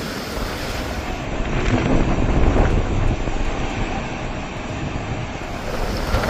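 Hurricane wind buffeting the microphone in an uneven low rumble, over the rush of storm-surge floodwater.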